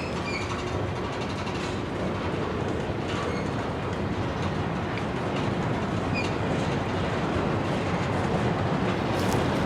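Freight train rolling along the track: a steady rumble of wheels on rail, with a few brief, faint high squeaks.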